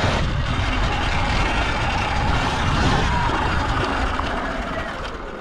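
Steady rushing wind noise with a low rumble, from a Falcon Pro 79 electric dirt bike being ridden on a loose sand track, with a faint motor whine; it eases off near the end.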